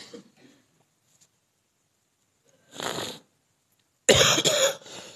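A man sips from a cup, then coughs: a softer cough about three seconds in and a louder, broken cough near the end.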